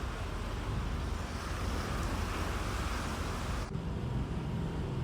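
Seaside ambience: a steady wash of surf and wind. About three and a half seconds in it cuts abruptly to a lower, steady rumble.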